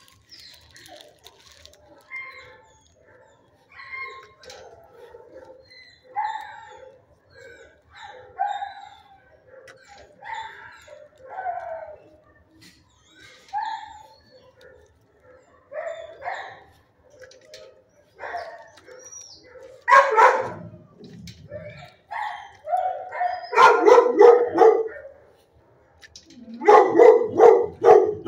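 Shelter dogs barking in their kennels: scattered, quieter barks at first, then louder bursts of barking in the last several seconds.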